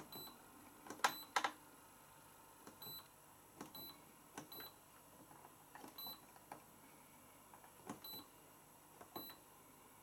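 Buttons being pressed on an AEG washing machine's control panel: soft clicks, each with a short high-pitched beep, about once a second. Two louder clicks come about a second in.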